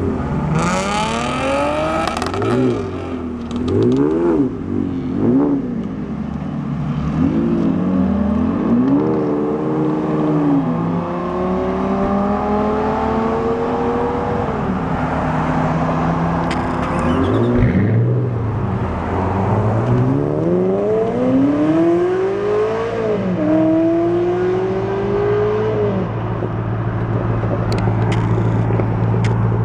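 Sports car engines revving hard and pulling away: a string of quick revs rising and falling in the first ten seconds, then cars accelerating off with long rising runs through the gears over a steady engine drone.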